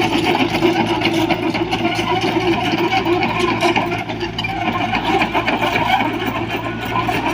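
Diesel engine of heavy construction machinery running steadily, with a fast even clatter over a low hum.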